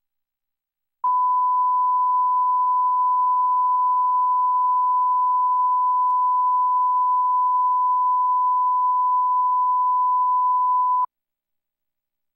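1 kHz line-up reference tone played with the colour bars at the head of a broadcast master, used to set audio levels: one steady pure tone that starts abruptly about a second in and cuts off about ten seconds later.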